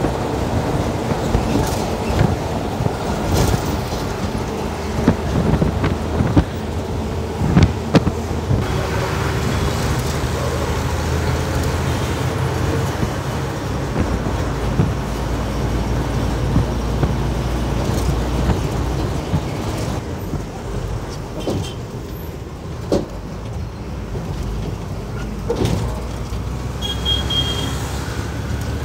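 A KSRTC bus in motion: its engine running steadily under road noise, with a few sharp knocks and rattles.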